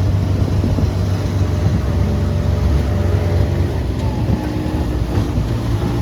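A vehicle engine running steadily, a continuous low rumble with a faint steady hum above it.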